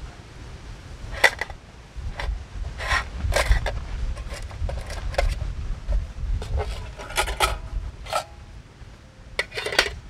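A series of light metal clinks and scrapes as a folding gas stove and an aluminium mess tin, with its wire rack and lid, are handled and set down on an aluminium table. A low wind rumble on the microphone runs underneath.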